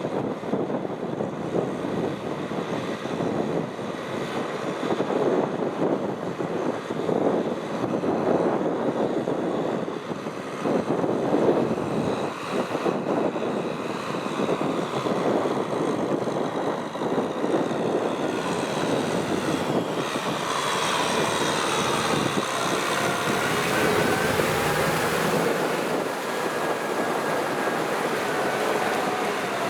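Tractor diesel engine running steadily under load while plowing wet rice-field mud. A faint whine shifting in pitch joins it in the last third.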